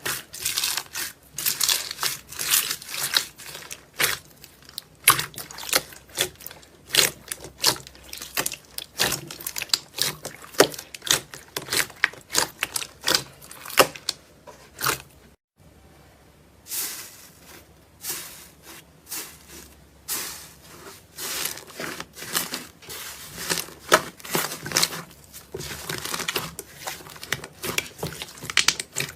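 Slime being squeezed and poked by hand, giving dense, irregular crackling and clicking pops. The sound breaks off briefly about halfway through, then carries on.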